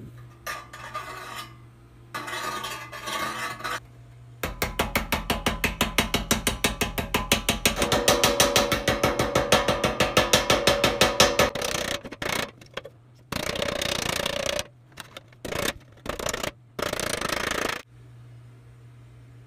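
Hammer blows in a rapid, even run on the rusty sheet-steel pan of an old-fashioned popcorn popper, knocking out its dents against a vise. The blows ring loudest in the middle, with shorter bursts of noise before and after.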